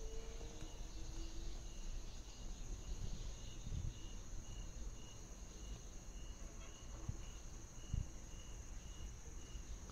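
Crickets chirping in a steady pulse of about two chirps a second, over a continuous high hiss and a low rumble, with a few faint low knocks.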